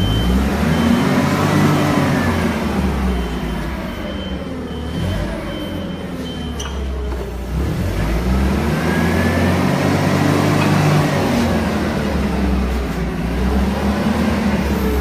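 A motor-driven machine winds up in pitch and back down twice, over a steady low hum. A high, regular beeping sounds for a few seconds early on.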